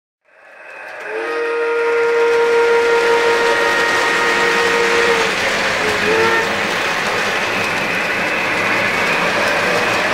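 Lionel O-gauge model of the Pennsylvania Railroad S2 steam turbine locomotive rolling along three-rail track, pulling passenger cars with a steady rumble of wheels on the rails. Its steam whistle sounds one long chord from about a second in to about five seconds, then a short toot near six seconds. The sound fades in at the start.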